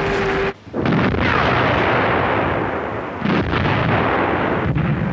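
Artillery barrage: heavy guns firing and shells bursting in a dense, continuous rumble of blasts. It breaks off briefly about half a second in, then fresh loud blasts come about a second in and again after about three seconds.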